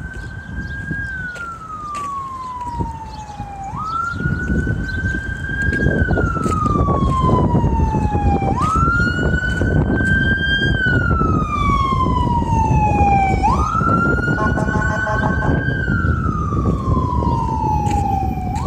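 A siren wailing in a repeating cycle: the tone jumps up quickly, then slides slowly down over about four seconds, four times. Under it, a rumbling noise grows louder about four seconds in and stays.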